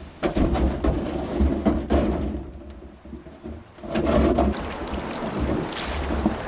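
Water rushing over a dam spillway, with wind gusting on the microphone and scattered knocks throughout.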